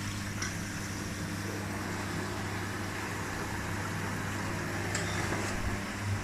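Electrolux washing machine in its final spin at 700 rpm: a steady hum and whir, with a second washing machine running alongside.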